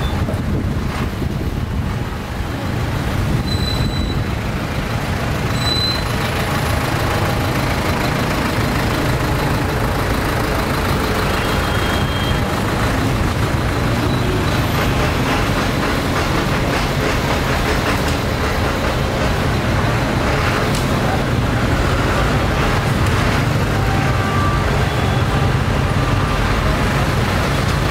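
Steady din of road traffic, with vehicle engines running close by and faint voices in the background.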